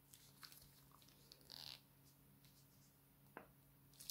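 Faint crinkling and squishing of a plastic piping bag being squeezed to press glossy slime out of its tip. There is a brief hiss about a second and a half in and a sharp tick near the end.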